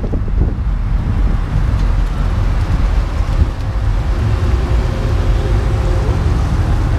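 Engines of a sedan and a lowered pickup truck rolling slowly past close by, a steady low rumble.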